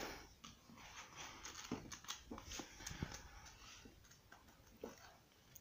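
Faint paper rustling and soft scattered clicks as a paperback colouring book is picked up and opened and its pages are handled.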